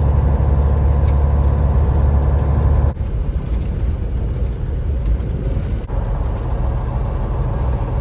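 Semi truck's diesel engine and road noise heard from inside the cabover's cab while driving, with a strong steady low engine drone at first. The sound changes abruptly about three seconds in and again about six seconds in, as short driving clips are cut together.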